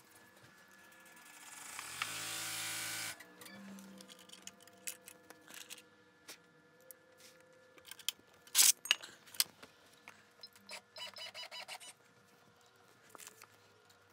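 Baby Lock Enterprise multi-needle embroidery machine running a tack-down stitch. A steady motor whine swells for about two seconds and cuts off suddenly, then come scattered mechanical clicks and a short rhythmic run of clicks near the end.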